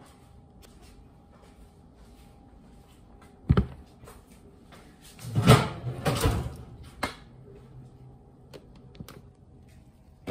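Kitchen handling sounds: a sharp knock about three and a half seconds in, then a louder clatter and scrape as a round metal cake pan is set down on a silicone trivet on the counter, and a single click about a second later.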